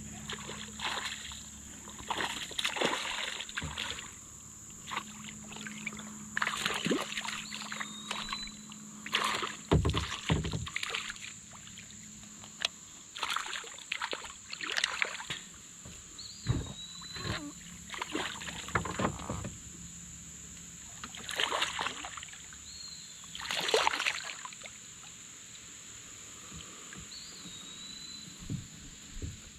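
Irregular splashing and sloshing at the water's surface beside a kayak as a hooked smallmouth bass thrashes and is landed. Under it runs a steady high insect drone, and a short chirp comes a few times.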